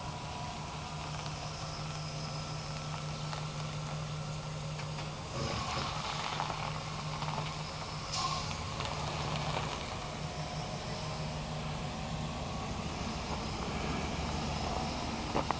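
Vehicle engine idling steadily, with a low, even hum.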